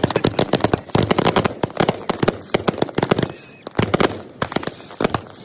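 Consumer fireworks going off in rapid, overlapping bangs and crackles, sped up to three times normal speed so the reports come packed tightly together, with a short lull about three seconds in.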